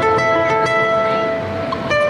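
Background acoustic guitar music: plucked notes ring on and overlap, with fresh notes struck a few times.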